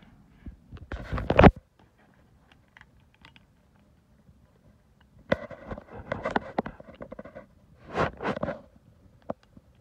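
Chrome steel sockets and ratchet handled close to the microphone: metallic clinks and scraping amid loud rubbing bursts. There is one burst about a second in, a run of quick clicking strokes in the middle, and another burst near the end.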